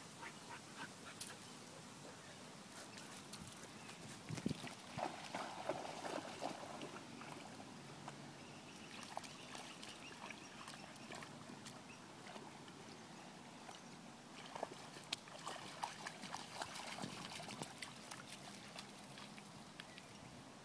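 Dogs wading and swimming in a shallow creek: quiet, irregular splashing and sloshing of water, with busier stretches of splashes about four to six seconds in and again around fifteen to seventeen seconds.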